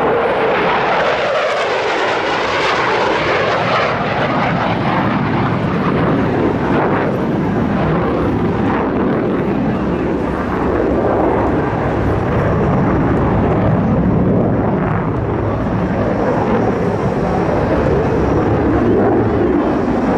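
F-15E Strike Eagle's twin turbofan jet engines, loud and continuous as the jet makes a low pass and pulls up steeply. A hissing roar at first, with a deep rumble building through the second half.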